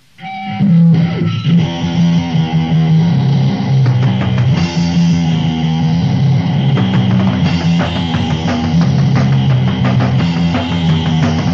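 A crust/grind punk song from a compilation cassette starts abruptly out of faint tape hiss: a loud, distorted guitar and bass riff repeating over and over.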